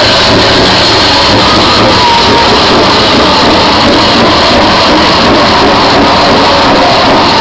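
Very loud, steady mix of music and heavy truck engines, with no pauses.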